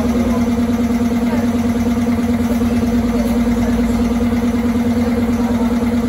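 Honda CB350 RS's air-cooled single-cylinder engine idling steadily.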